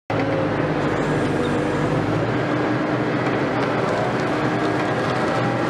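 Liebherr 924 wheeled excavator's diesel engine and hydraulics running steadily, an even hum with several steady tones.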